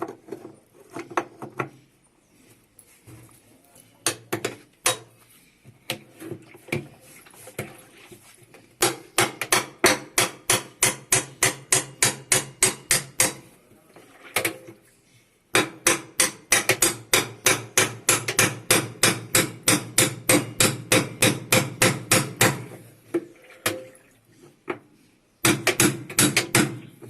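A hammer striking steadily, about three to four blows a second, in three runs with short pauses and a few lighter knocks in between, as a replacement basket and spider are fitted to an LG washing machine.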